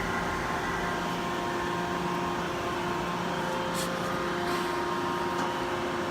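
Yama Seiki VMB-1020 vertical machining center running a program: a steady machine hum from the spindle and axis drives with several steady tones, and a couple of faint clicks about four seconds in.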